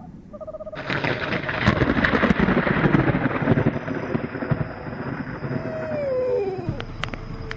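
A short owl hoot, then thunder that crashes in suddenly about a second in and rumbles away over about four seconds. Near the end come two falling, sliding tones, then a steady held tone.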